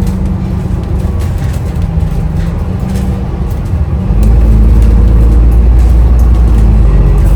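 Steady low rumble of a moving bus heard from inside, engine and road noise, growing louder about four seconds in.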